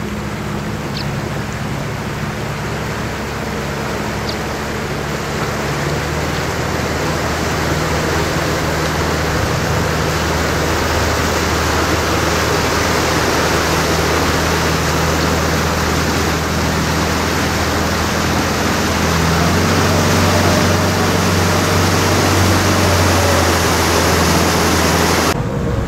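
Boat engine running under way, a steady low hum over the loud rush of water along the hull. The engine note steps up about six seconds in and again a few seconds before the end as the boat picks up speed.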